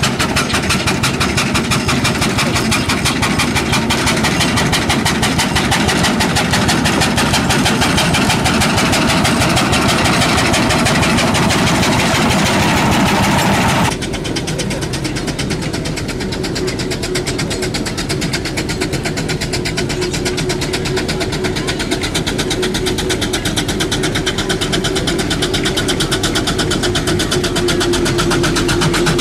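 Steam traction engine, then a steam roller, running as they drive along: a steady mechanical sound with a rapid beat. About halfway through the sound changes abruptly and becomes duller, with a steady hum through the second half.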